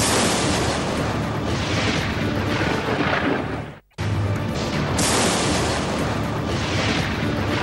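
Edited thunder crashes over music: a loud rumbling crash cuts off abruptly a little under four seconds in, and a second crash starts suddenly right after.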